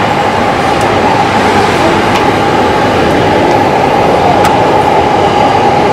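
A train running past: a loud, steady rumbling noise with a steady high whine throughout and a few faint clicks.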